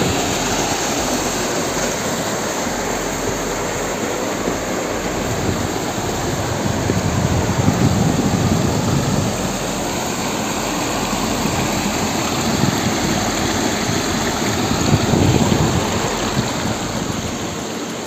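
Rushing water of a rocky mountain stream and small waterfall, a steady hiss and roar that swells louder twice.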